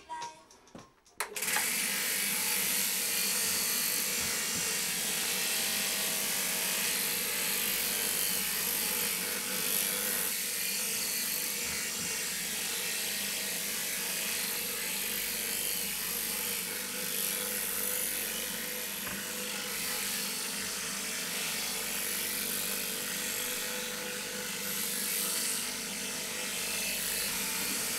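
Electric sheep-shearing machine running steadily as its handpiece clips through a sheep's fleece: a continuous mechanical buzz with a steady hum. It cuts in about a second in, as the music stops.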